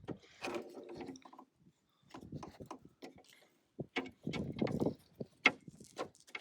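Hand work on a Jeep Wrangler TJ door's handle linkage: irregular clicks, taps and rattles as the rod retaining clips are popped up and the latch and lock rods are worked free of the old handle. The sharpest click comes about five and a half seconds in.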